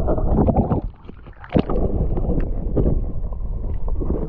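Muffled sloshing and gurgling of stream water against a camera held underwater, with a few sharp knocks as hands move in the water.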